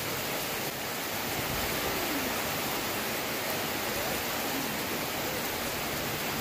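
Heavy rain pouring down, a dense, steady hiss that does not let up.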